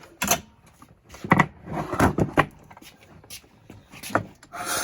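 Old four-stroke petrol lawn mower being cranked on its pull-cord recoil starter, a few short separate bursts of pulling and turning over, the engine not firing. It is being cranked to check for a spark, and no spark shows: the ignition is dead.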